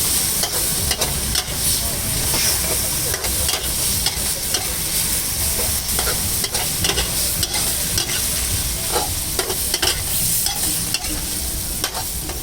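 Stir fry sizzling in a hot pan while a metal spatula stirs and scrapes it, with frequent sharp clacks of the spatula against the pan over a steady sizzle and a low rumble underneath.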